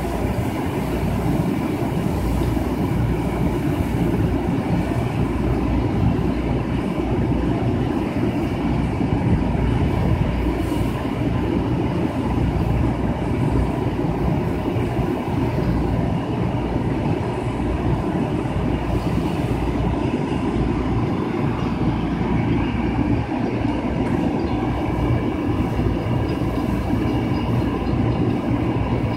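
Long Island Rail Road electric commuter train alongside the platform: a steady, loud rail rumble with thin high tones running over it.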